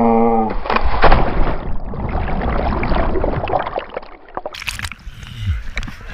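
A yell that breaks off about half a second in, as a person drops from monkey bars into a pool of muddy water. A loud splash follows, then several seconds of churning, sloshing water around the head-mounted camera, and more splashing near the end as he comes back up to the surface.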